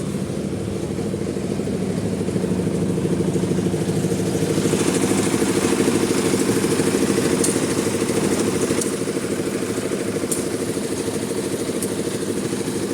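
An engine running steadily with a fast, even pulse. It grows louder over the first few seconds, then eases off a little.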